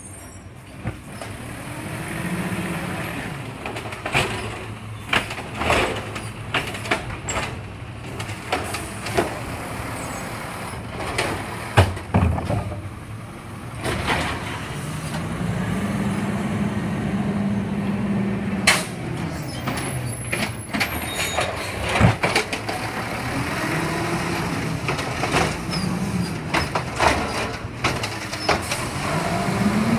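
Waste Management automated side-loader garbage truck at work: its engine's pitch rises and falls several times as it drives the lifting arm, with repeated clanks and bangs from the arm and the carts being dumped.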